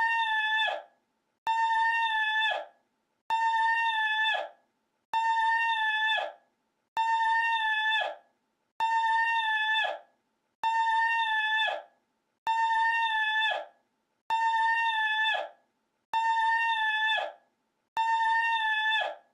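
The same short call, held at one steady pitch, repeated identically as a loop: about eleven times, roughly one every two seconds, each lasting about a second and dropping off sharply at the end.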